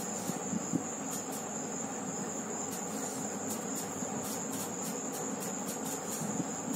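Steady high-pitched chirring, typical of crickets, with a few faint irregular ticks.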